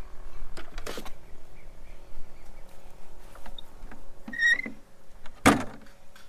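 A plastic crate of potatoes knocks down onto a wooden trailer deck, then a wheelbarrow clatters as it is grabbed and moved off, the loudest knock about five and a half seconds in. A brief high-pitched sound comes a second or so before it.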